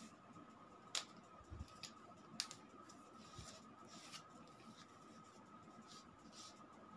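Cardboard mailer handled and opened with a small utility knife: a few sharp clicks and taps, about one, two and a half and four seconds in, with soft scraping and rustling of cardboard.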